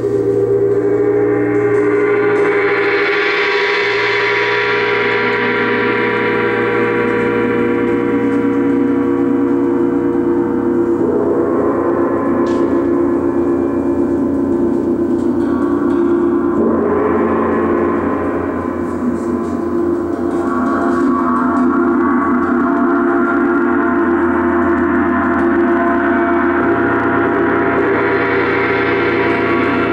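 Large Paiste gong played with a soft mallet: a continuous, dense ringing wash of many overlapping tones that swells and brightens in waves, about four times.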